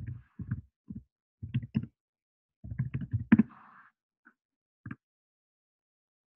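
Irregular muffled bumps and clicks, several short groups over about five seconds, the loudest a little past the middle, then nothing.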